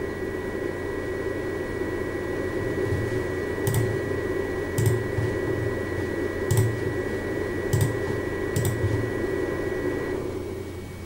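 TerraMaster F2 NAS cooling fan running at its maximum speed, heard close to the back of the unit: steady rushing air noise with a thin high whine. A few sharp clicks come in the middle, and about ten seconds in the whine stops and the fan noise drops.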